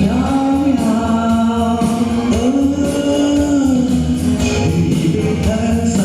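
A song sung live over backing music: the voice holds long, gliding notes over a steady bass.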